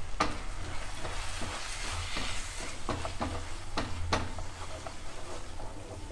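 Tomato-onion masala with ground spices sizzling in a frying pan while a spoon stirs it. The spoon knocks against the pan several times, most often around the middle.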